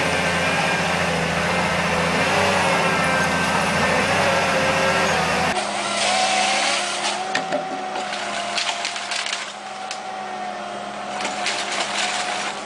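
A heavy machine's engine running steadily. About five and a half seconds in it cuts abruptly to a quieter sound: a steady whine with scattered clicks and knocks.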